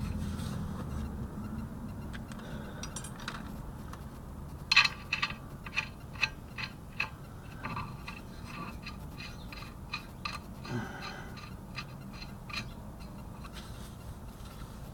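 Hand tools working on car suspension parts: a string of sharp, irregular metallic clicks and taps, loudest about five seconds in, fading out over the next several seconds.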